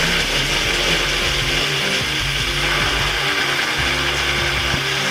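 Countertop blender running steadily at full speed, its motor whirring as it purées boiled komatsuna with a little water into a smooth paste; the sound cuts off suddenly at the end.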